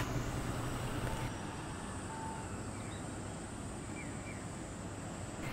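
Outdoor evening street ambience: a steady hum of distant traffic, with a few faint short chirps near the middle.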